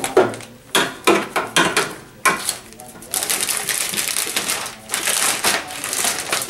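A laminating-film roll on its supply mandrel knocking and clicking into place on the laminator, then the plastic laminating film crinkling and rustling from about three seconds in as it is pulled off the roll and handled.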